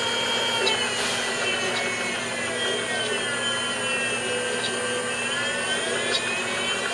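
Baileigh DP-1500VS 20-inch variable-speed drill press running unloaded, its inverter-driven motor and drive making a steady whine. The whine falls in pitch as the speed knob is turned down, then rises again in the last couple of seconds.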